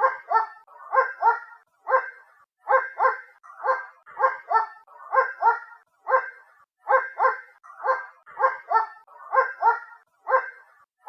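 A dog barking over and over, in quick pairs and single barks, roughly two a second, heard from a distance so that it sounds thin and lacks low end.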